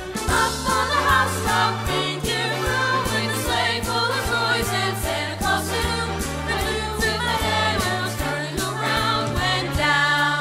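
Choir singing a Christmas song, with a stepping bass line and a steady beat under the voices.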